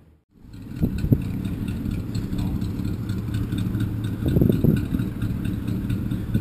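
1989 Dodge Ramcharger's V8 engine idling steadily, rising slightly for a moment a little past the middle.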